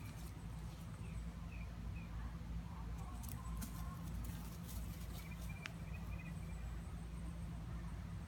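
Quiet outdoor ambience: a low steady rumble with faint, scattered bird chirps, and a few light clicks about three to four seconds in.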